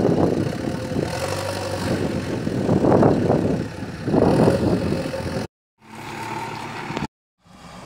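Diesel engine of a JCB backhoe loader working as its front bucket pushes soil, surging louder under load several times. The sound cuts out completely twice, briefly, near the end.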